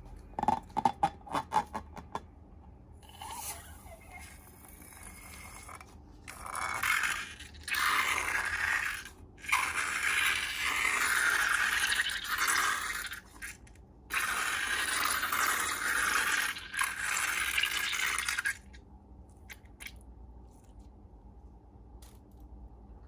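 Slime being worked by hand in a slime-making session: a quick run of sharp clicks at the start, then long stretches of scraping noise with short breaks, stopping about three-quarters of the way through.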